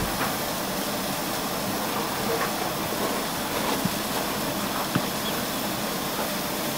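Steam hissing steadily from a standing LMS Stanier Black Five 4-6-0 steam locomotive.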